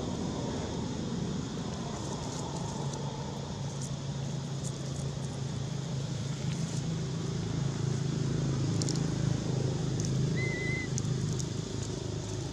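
Low steady motor hum that grows a little louder in the middle, with faint scattered clicks and one brief high chirp about ten seconds in.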